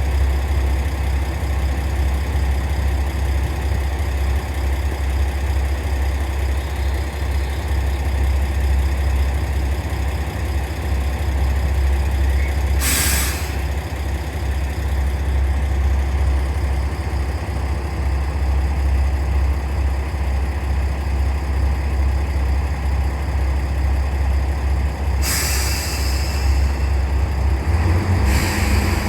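Diesel railcar engine idling steadily, with short hisses of compressed air from the air brakes about 13 seconds in and twice near the end.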